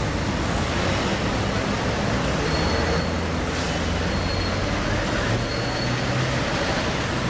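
Street traffic: vehicle engines running as cars and a goods lorry drive past, with a steady low engine hum that is strongest in the middle.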